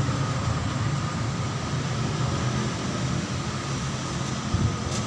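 Coffee press machine running with a steady mechanical hum and a thin whine, with a faint knock near the end.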